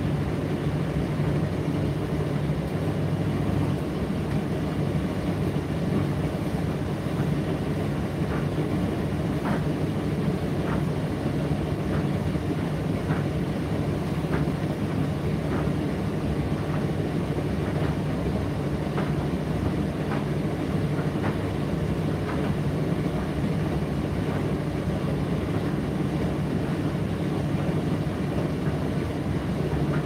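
Indesit IDC8T3 condenser tumble dryer running steadily, its motor and drum giving a constant low hum with fan noise, and faint light ticks every second or so.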